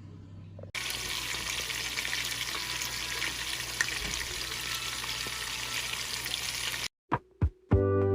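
Food sizzling as it fries in hot oil in a pan, a steady dense crackle that starts abruptly just under a second in and cuts off sharply near the end. A low hum comes before it, and music starts in the last moment.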